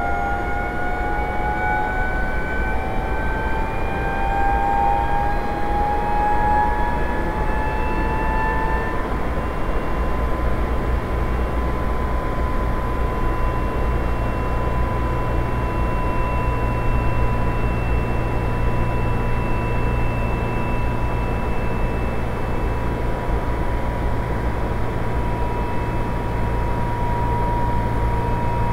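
Recreated running sound of a Shin-Keisei 8900 series train with a Mitsubishi IGBT-VVVF inverter, AC four-pole open self-ventilated induction motors and WN drive. For about the first nine seconds the inverter and motor tones rise in pitch together with the gear whine as the train accelerates under power. Then the power cuts off and the train coasts, leaving a steady gear whine that slowly falls in pitch over a low rumble of the running gear.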